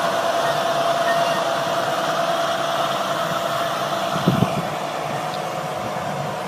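A machine's engine running steadily, with a thin steady whine over it and a brief low thump a little over four seconds in.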